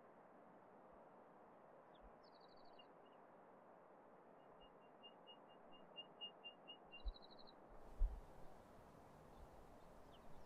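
Faint outdoor ambience with a steady hiss and high, thin animal calls: two brief rapid trills and a run of about a dozen evenly spaced peeps, a few a second. A few low thumps come around six to eight seconds in, the loudest near eight seconds.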